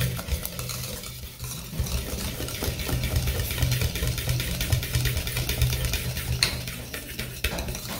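Eggs and sugar being beaten in a bowl, the utensil making a rapid, continuous clicking against the bowl. A steady low hum runs underneath.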